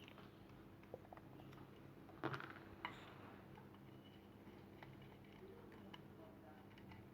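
A few faint clicks and taps from small parts of a car bonnet lock mechanism being handled and fitted, the loudest a short cluster a little over two seconds in, over a faint steady hum.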